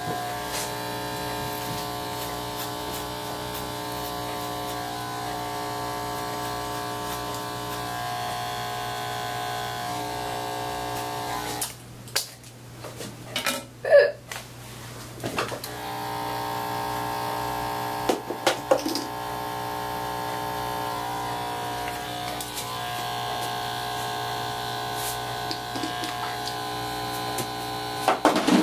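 Corded electric hair clippers buzzing steadily as they cut hair. About twelve seconds in they stop for roughly four seconds, with a few clicks and knocks, then start buzzing again.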